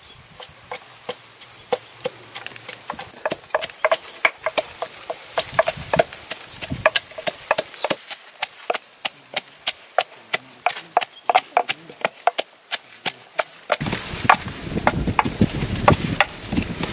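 A cleaver chopping garlic and herbs on a wooden chopping block, mixed with a wooden pestle pounding in a wooden mortar: a dense run of sharp wooden knocks. Near the end, wind buffets the microphone with a low rumble.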